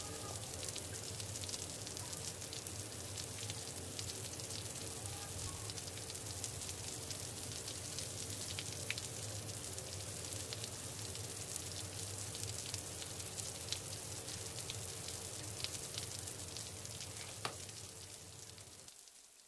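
Steady crackly hiss over a low hum, with scattered faint clicks and one sharper tap near the end; it fades out over the last second or two.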